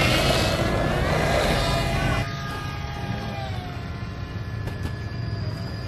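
RC model plane's motor and propeller running at high throttle with a buzzing whine that rises in pitch over the first two seconds. About two seconds in it drops in level and carries on as a steadier, fainter drone.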